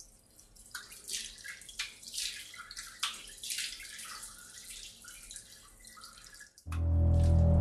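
Water from a bathroom tap splashing irregularly in a sink as it is scooped up by hand onto a face. Near the end a loud, low, droning film score cuts in suddenly.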